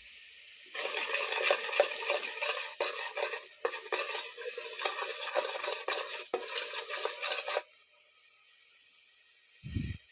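Metal utensil stirring and scraping around in a cooking pot, a dense rapid clatter lasting about seven seconds, then stopping. A short low thump near the end.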